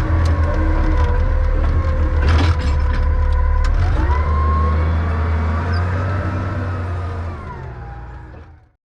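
John Deere 444 wheel loader's engine running and revving, with a whine that slides up and down in pitch and a couple of sharp clanks. The sound fades and then cuts off abruptly near the end.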